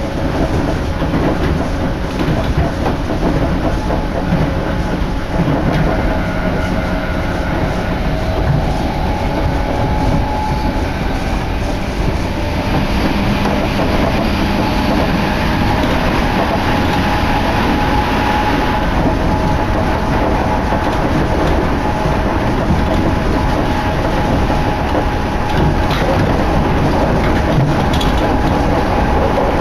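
Chuo Line electric train running at speed, heard from inside a passenger car: a steady rumble of wheels on rails with a faint steady whine. The noise grows brighter for several seconds around the middle.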